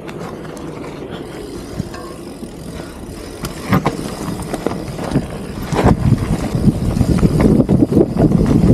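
Mountain bike riding down dirt singletrack: the tyres rumble over the ground and the bike knocks and rattles over bumps. There are sharp knocks about a third and two-thirds of the way through, and the sound gets louder and rougher over the last few seconds.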